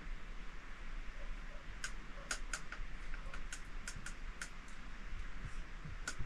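Sharp, irregular clicks, about a dozen, over a steady hiss.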